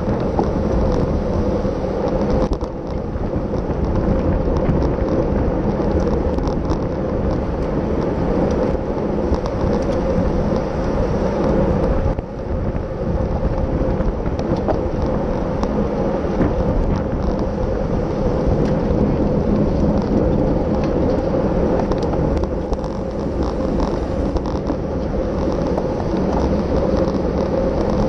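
Steady wind rush buffeting the microphone of a camera on a bicycle at racing speed, with tyre and road noise underneath and a few faint ticks.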